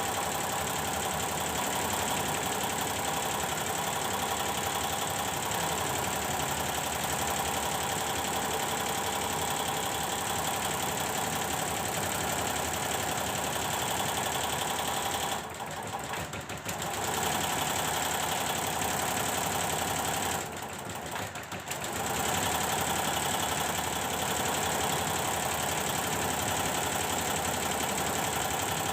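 Computerized embroidery machine running steadily under test, its stitching mechanism making a constant mechanical clatter. It dips quieter twice for about a second, around the middle.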